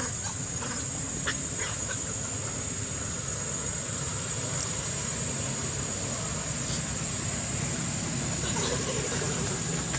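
Steady outdoor ambience: a continuous high-pitched insect drone over a low rumble, with a couple of faint clicks about a second in.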